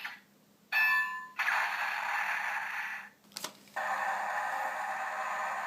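Electronic sound effects from a DX Dice Saber toy's small speaker: a short chime, then a long hissing effect, a click, and another long hissing effect.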